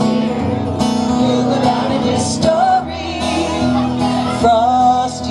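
Live band playing a Christmas song: singing over acoustic guitar and a drum kit, loud through the stage sound system.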